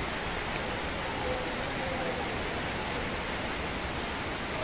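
Steady rain falling, an even hiss with no distinct drops or impacts.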